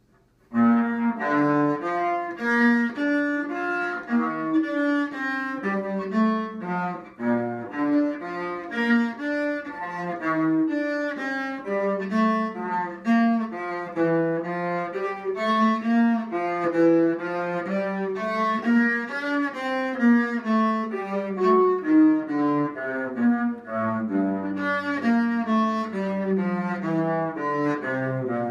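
Solo cello played with a bow, a steady stream of short notes changing several times a second, starting about half a second in.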